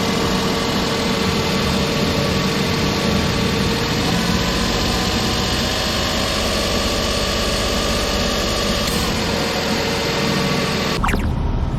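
Suzuki Alto's engine idling steadily, with a faint steady whine over it. About eleven seconds in, the shot cuts to another take of engine noise.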